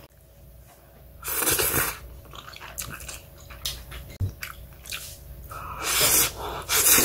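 A person eating Chapagetti black-bean instant noodles with chopsticks: a loud noodle slurp about a second and a half in, then chewing with small clicks, and more loud slurping near the end.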